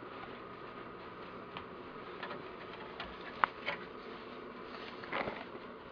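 Quiet indoor room tone: a steady faint hiss and hum, with a few small faint clicks and knocks through the middle and a short soft sound near the end.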